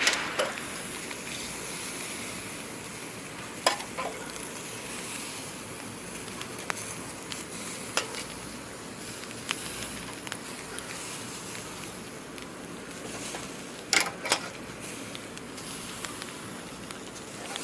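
Bratwursts sizzling on a small charcoal grill: a steady hiss, broken by a few sharp clicks, the loudest about fourteen seconds in.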